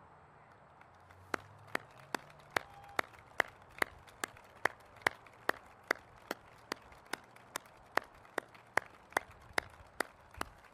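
Hand claps close to the microphone in a steady, even rhythm, about two and a half claps a second, starting just over a second in.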